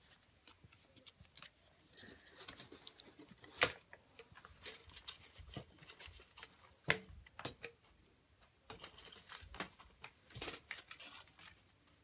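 Small handmade paper and cardboard props being handled and put down: light rustling and scattered taps, with two sharper clacks, one a few seconds in and one about halfway.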